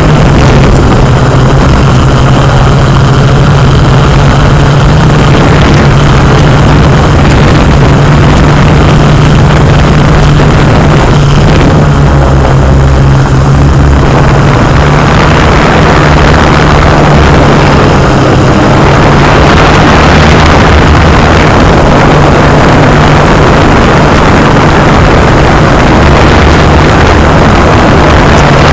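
Yuneec Q500 quadcopter's four electric motors and propellers running in flight, a loud, steady drone with a constant low hum and a rush of air, heard on board the aircraft.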